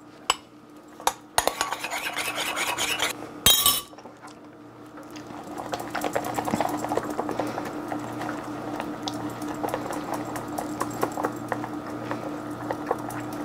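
A small spatula stirring and scraping a thick whipped mixture around a ceramic bowl, in repeated strokes, with one sharp knock about three and a half seconds in.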